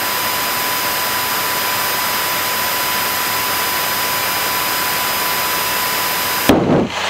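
Steady engine and propeller noise of a single-engine light airplane heard inside the cabin while it moves along the airstrip. Near the end the noise breaks into a brief louder jumble and cuts off suddenly.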